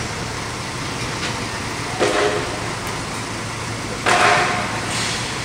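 Hino truck's diesel engine running steadily as the truck sits stuck in mud. A short warning tone sounds twice, about two seconds apart, the first about two seconds in and the second near the end.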